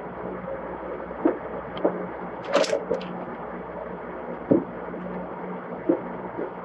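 Two cats tussling on a wooden floor: scattered soft knocks and thumps of paws and bodies on the boards, with one sharper, brighter noise about two and a half seconds in, over a steady background hum.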